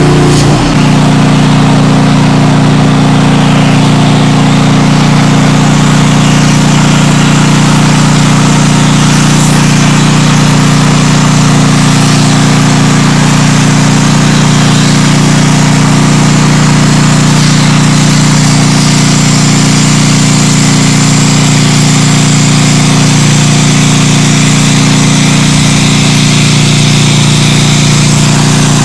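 Plasma cutting equipment running steadily: a loud, constant hum made of several low tones, with hiss above it and no pauses.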